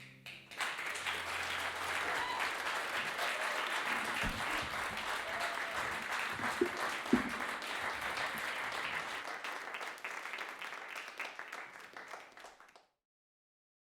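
Audience applauding, starting about half a second in, thinning out near the end and then cutting off.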